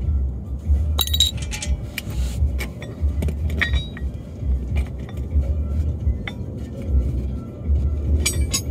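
Metal tools and car parts clinking and clattering in a few short clusters during wrench work on a car's front suspension, over a low rumble.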